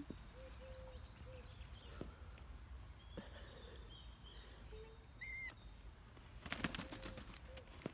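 Faint outdoor background with a short flurry of a falconry bird's wingbeats about six and a half seconds in, and a single short bird chirp just before it.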